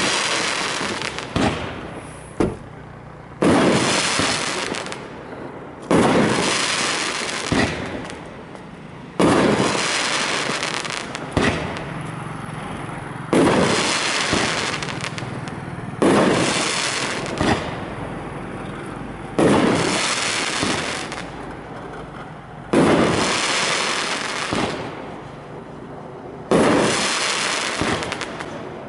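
A Topgun Night Howler 16-shot 500-gram fireworks cake firing shot after shot: a loud bang every few seconds, with smaller pops between, each dying away over a second or two.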